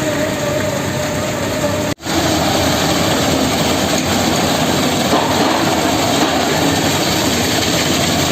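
Sumitomo SH75 mini excavator running, a loud, steady machine noise with a faint whine that sinks slightly in pitch. It cuts off for an instant about two seconds in and comes straight back.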